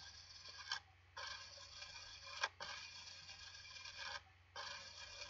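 Steady faint microphone hiss with a low electrical hum beneath it. The hiss drops out briefly twice, and there are a couple of short faint clicks, one just before the first dropout and one about two and a half seconds in.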